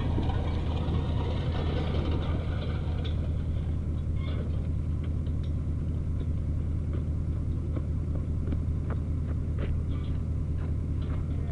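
An engine running steadily at idle, with scattered light clicks and knocks over it.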